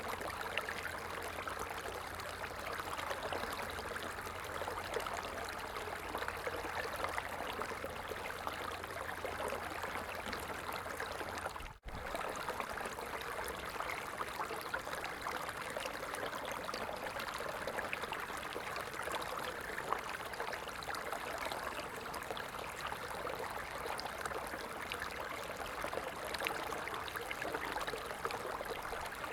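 Stream water running and trickling in an even, steady rush. It cuts out for a split second about twelve seconds in, then carries on, with a low hum gone after the break.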